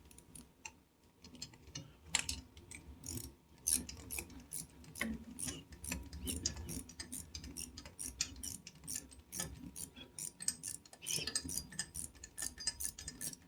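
Ratchet spanner clicking in quick runs, about four or five clicks a second, as a 13 mm bolt on a motorcycle head steady is undone.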